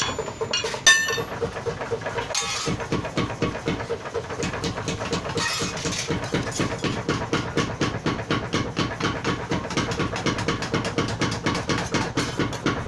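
A power hammer strikes hot steel with a single ringing clang about a second in. After that, workshop machinery keeps up a steady, fast knocking rhythm of about five beats a second.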